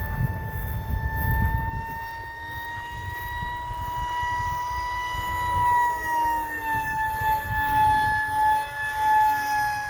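Electric motor and pusher propeller of a 3D-printed RC F-22 model plane whining at a steady pitch that rises slightly, then drops about six seconds in. Wind rumbles on the microphone for the first two seconds, and the whine swells and fades in the second half.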